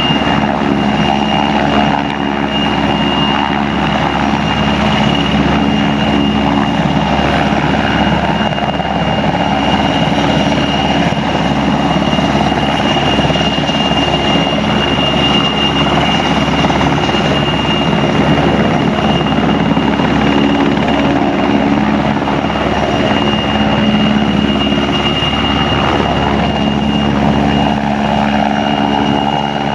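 PZL W-3A Sokol helicopter hovering and manoeuvring close by, its twin turboshaft engines and rotor running steadily, with a steady high turbine whine over the rotor noise.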